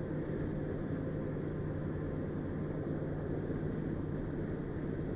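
Steady running noise of a moving vehicle, engine and road, with a constant low hum.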